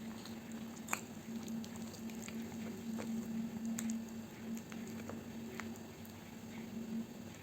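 Close-miked eating sounds: soft, wet chewing with small mouth clicks, one sharper click about a second in, over a steady low hum.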